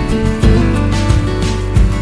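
Instrumental background music with sustained pitched notes that change every so often.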